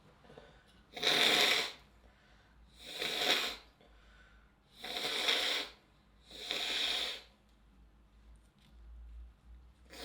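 A woman sneezing repeatedly: four loud, breathy sneezes about two seconds apart, each under a second, then a softer one at the very end.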